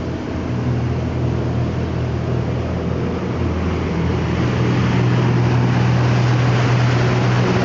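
Twin Yamaha outboard motors running at speed with a steady low drone, mixed with rushing wake water and wind. The sound is heard first through the cabin, then grows louder and brighter about halfway through, out at the open stern.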